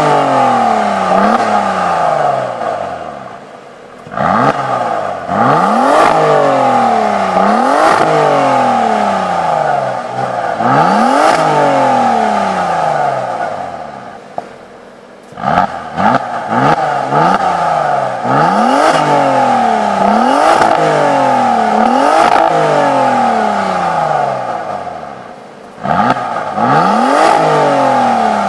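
Opel Insignia OPC's turbocharged 2.8-litre V6 revved again and again in quick blips, each a fast rise in pitch followed by a slower fall. It comes in three runs with short lulls between them.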